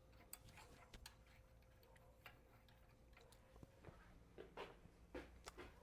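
Faint, irregular metal clicks of a wrench snugging down a nut on a motorcycle's rear brake drum assembly, with a few sharper ticks in the second half.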